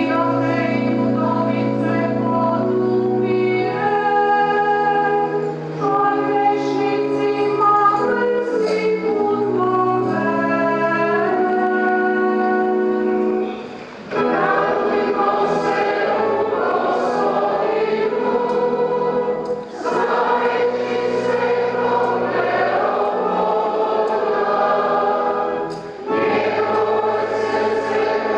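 Church choir singing a hymn with organ accompaniment: held organ chords carry roughly the first half, then the choir comes in about halfway and sings in phrases with short breaks between them.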